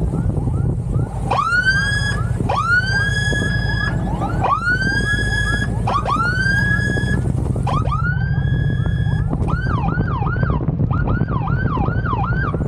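Police motorcycle's electronic siren, sounding as a series of rising wails that climb and hold for about a second each, then switching about three-quarters of the way through to a fast yelp of quick rise-and-fall sweeps. A steady low rumble of engine and wind runs underneath.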